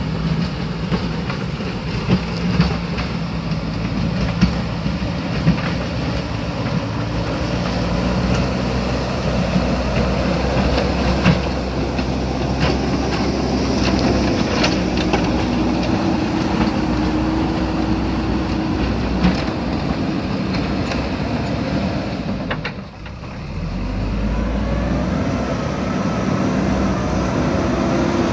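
JCB backhoe loader's diesel engine running steadily under load while digging, with scattered knocks and scrapes. Near the end the engine briefly drops off, then revs back up with a rising pitch.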